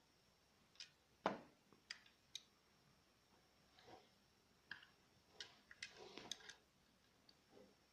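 Hand-operated staple gun being handled and turned over: scattered faint clicks and knocks, the loudest a single knock a little over a second in and a busier run of clicks near the end.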